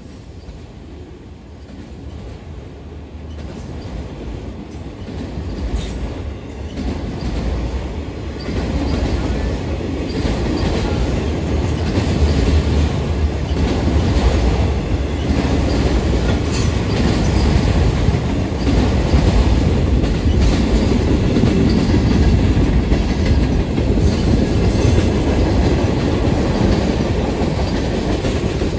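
Freight train of autorack cars rolling past at speed: a steady low rumble with the clickety-clack of steel wheels over the rail joints. It grows louder over the first dozen seconds, then holds.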